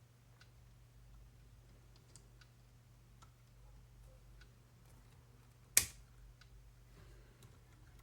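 Small plastic and metal RC car parts being handled and fitted by hand, with faint scattered clicks and one louder clack about six seconds in. A steady low hum runs underneath.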